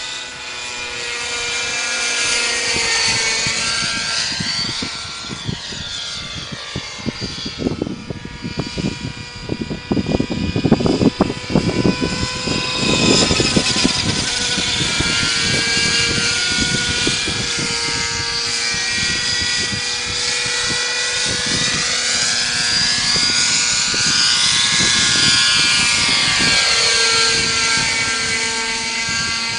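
Nitro radio-controlled helicopter in flight: its small glow engine and rotor run with a steady high whine, and the sound sweeps up and down as the helicopter moves about. Gusty buffeting on the microphone for several seconds in the middle.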